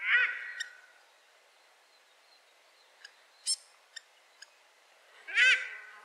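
Female paradise shelduck calling twice: a loud, high call with a rich stack of overtones right at the start and again about five seconds in. A few short high chirps come between the two calls.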